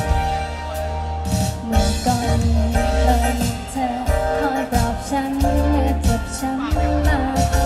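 Live band playing a Thai pop song, with a singer's voice over drums and bass and a steady beat.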